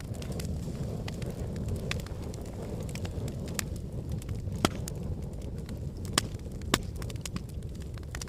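Wood fire burning in a fireplace: a steady low rumble of flames with scattered crackles and pops, three sharper snaps in the second half.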